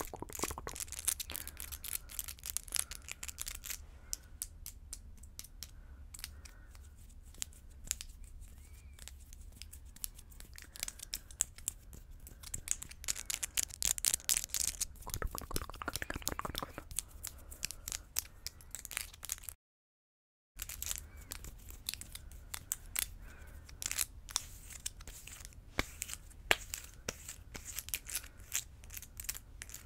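Long acrylic nails tapping and clicking against one another close to a microphone: quick, irregular clicks in flurries. The sound cuts out completely for about a second partway through.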